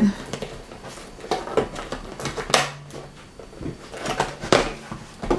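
A small cardboard product box being opened by hand: irregular taps, scrapes and rustles of the cardboard flaps and packaging.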